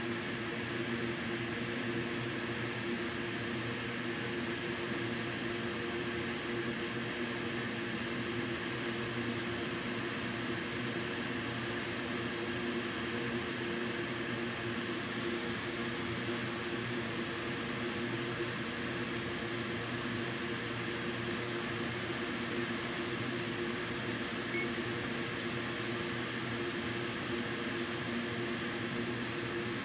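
Hot air rework station blowing a steady hiss with a constant hum underneath. It is heating the solder to lift a MOSFET off the circuit board.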